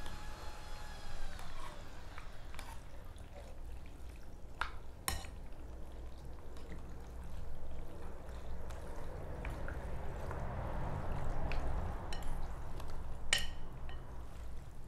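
Wooden chopsticks and a metal spoon stirring and lifting noodles in a bowl of broth, with soft wet liquid sounds. A few sharp clicks of the utensils against the bowl, the loudest about five seconds in and again near the end.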